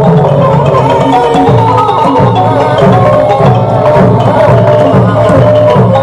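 Thai traditional ensemble music of the kind that accompanies khon masked dance: a busy melody on pitched percussion over a steady, regular drum beat.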